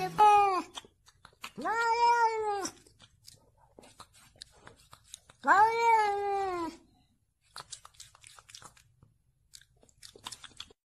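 Domestic cat meowing: a short meow at the start, then two long, drawn-out meows of about a second each, about two and six seconds in, each rising and then falling in pitch. Faint clicks fall between them.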